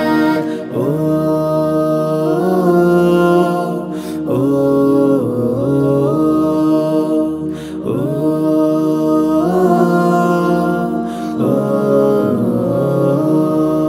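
Vocals-only Bengali nasheed sung a cappella by a group of boys and a man: layered voices hold long chords that step in pitch every couple of seconds, with a short hit about every three and a half seconds.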